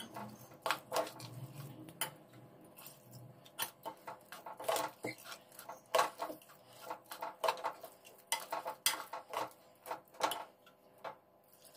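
Spoon clinking and scraping against the inside of a pressure cooker in irregular knocks as ragi flour is stirred into mashed cooked rice.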